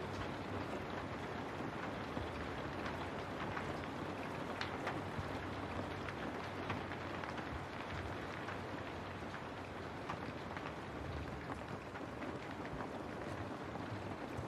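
Steady rain with many scattered sharp drop hits, over a low steady rumble.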